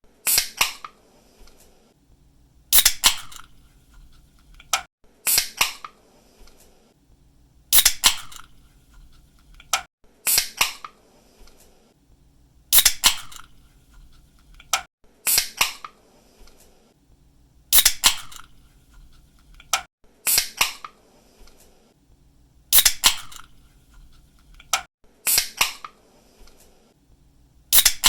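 Pull-tab aluminium drink can being cracked open again and again, about once every two and a half seconds: each time a sharp snap of the tab followed by a short fizzing hiss of escaping gas.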